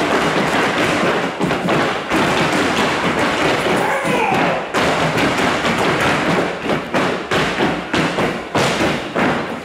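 Group of dancers in gaucho boots stamping and striking the stage floor in a fast, dense zapateo, the rhythmic footwork of an Argentine malambo.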